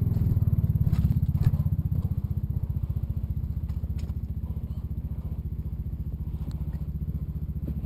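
Kubota RTV utility vehicle's engine idling with an even, low chug, a little fainter after the first couple of seconds. A few sharp clicks cut through it, the loudest about one and a half seconds in.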